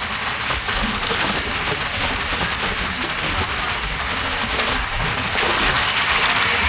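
Steady rush of wind and wheel noise from an Indian Railways express train running at full speed, heard through an open carriage window. About five seconds in it grows louder as a container freight train passes close alongside.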